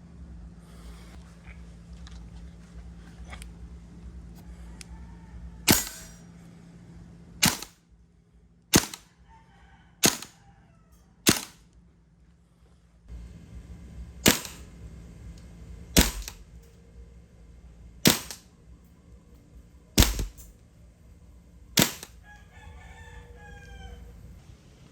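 WE M16A4 gas blowback airsoft rifle firing single shots, ten in all, one to two seconds apart, each a short sharp crack, with a pause of about three seconds after the fifth.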